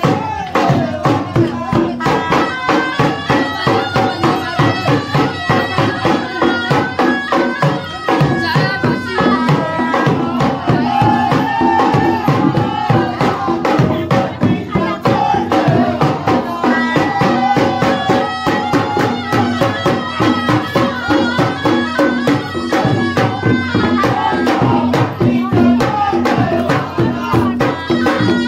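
Traditional Indian folk music: fast, steady drumming under a melody line and a held low drone.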